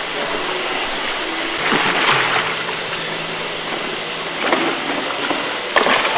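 A hooked giant grouper thrashing at the surface beside the pond wall, splashing in bursts about two seconds in, again around four and a half seconds, and near the end, over a steady hiss of water.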